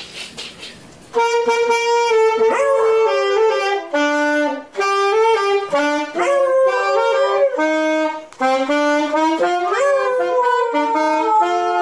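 A saxophone starts about a second in and plays a melody of held notes. A dog howls along with it, a rising wail every three to four seconds.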